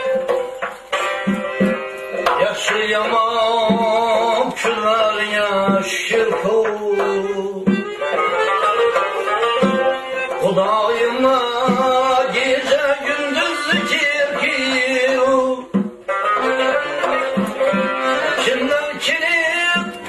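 Male voice singing a Central Asian folk song, accompanied by a long-necked plucked lute and a frame drum keeping a steady beat. The sound dips briefly about three quarters of the way through.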